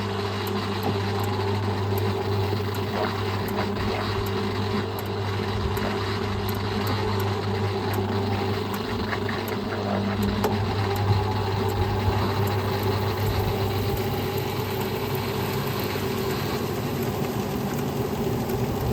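Homemaker 7 kg top-loading agitator washing machine in its spin cycle: a steady motor hum as the tub spins at full speed, reckoned at about 700 RPM.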